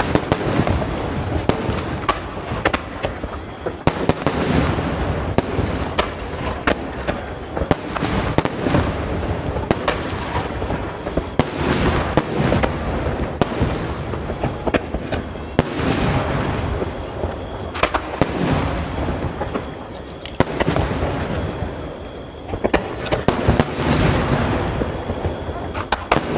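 A barrage of large aerial firework shells (ten-inch shakudama) launching and bursting in quick succession. The booms overlap and echo, with brief lulls about twenty seconds in.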